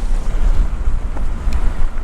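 Low, steady rumble with wind buffeting the microphone, typical of a vehicle running slowly on a slick road.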